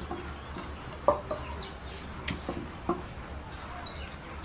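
Birds calling: several short, low clucking calls and a few high chirps, with one sharp click a little after two seconds in.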